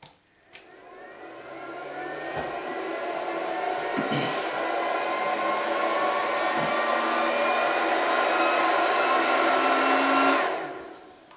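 Handheld induction bolt heater used as a cartridge-case neck annealer, switched on with a click. It runs for about ten seconds as a rising rush with several thin whines that climb slowly in pitch, then shuts off on its 10-second timer and dies away.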